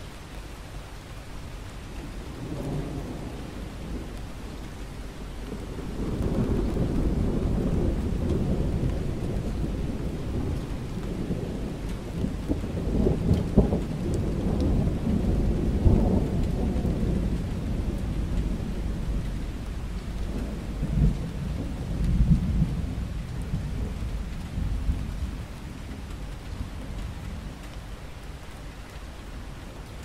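Steady rain falling, with a long roll of thunder. The thunder builds a few seconds in, is loudest around the middle with a few sharper cracks, and rumbles away near the end.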